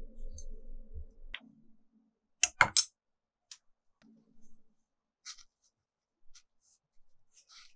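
Sharp clicks and taps of painting tools and supplies being handled on a work table: three loud clicks close together about two and a half seconds in, then a few lighter scattered ticks.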